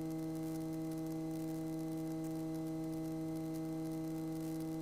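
Steady electrical hum made of several evenly spaced tones over faint hiss, heard through a light aircraft's intercom audio.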